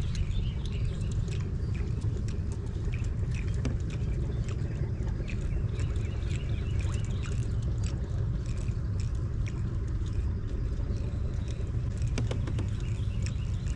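Steady low rumble of wind buffeting the microphone, with small birds chirping repeatedly over it and scattered light clicks.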